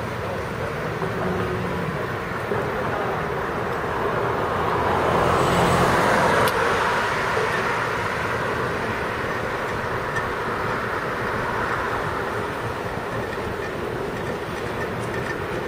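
Steady city traffic and road noise on a street at night, swelling for a couple of seconds around the middle before settling back. A single sharp click comes about six and a half seconds in.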